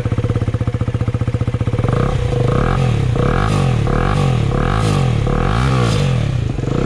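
KTM Duke single-cylinder motorcycle engine with a freshly fitted aftermarket exhaust, idling in neutral with a loud, evenly pulsing putter. About two seconds in, the throttle starts being blipped repeatedly, about two quick revs a second, to show off the exhaust note.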